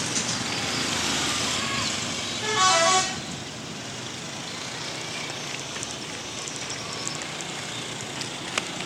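A bus's telolet musical horn plays a short run of stepping tones about two and a half seconds in, over steady traffic noise.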